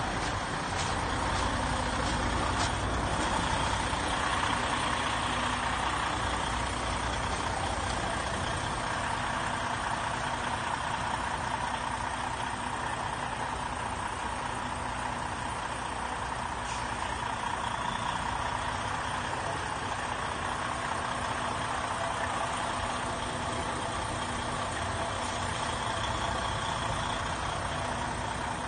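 Semi-truck's diesel engine running at low speed and idling as the tractor eases into place, a steady even rumble with a constant hum.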